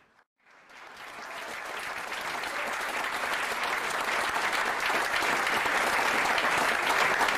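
Audience applause, starting after a brief silence and growing steadily louder.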